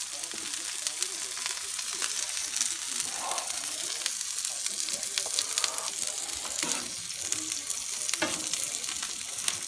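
Raw ground-beef burger patty and potato bites frying on a hot flat-top griddle: a steady high sizzle with scattered crackles and pops.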